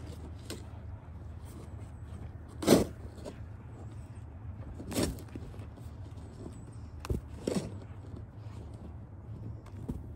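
A few short, sharp scrapes and crunches of snow, the loudest about three seconds in: a snow shovel scooping and tossing snow while a blue heeler (Australian cattle dog) plunges through deep powder. A steady low hum runs underneath.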